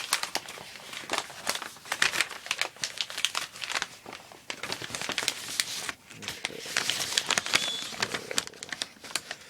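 Paper crinkling and rustling as it is handled, with dense irregular crackles.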